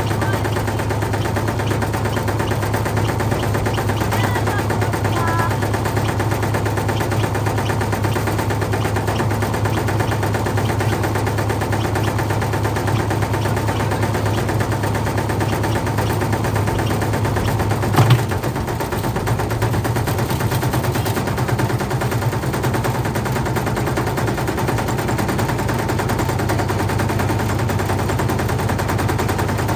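Whirlpool washing machine running with heavy bricks in its drum: a rapid, continuous banging and rattling over a steady low hum, with one louder bang about eighteen seconds in.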